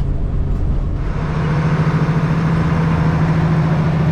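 Low vehicle rumble for about a second, then the six-cylinder diesel engine of an International 1486 tractor running steadily with a strong, even hum.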